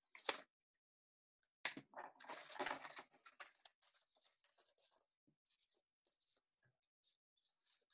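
Thin paper being handled and cut with scissors: two sharp taps in the first couple of seconds, a loud paper rustle, then a run of faint, quick scissor snips through folded paper.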